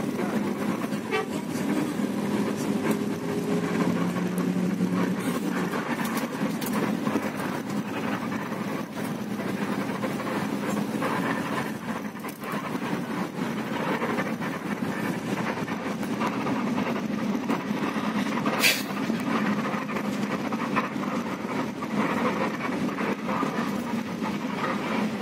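Intercity bus engine and road noise heard from inside the passenger cabin: a steady drone with small rattles, and one sharp click about three-quarters of the way through.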